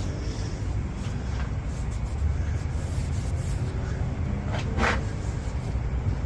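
Power drill running, its bit spinning against carpet cloth without cutting through it, with a steady low rumble and a couple of short clicks.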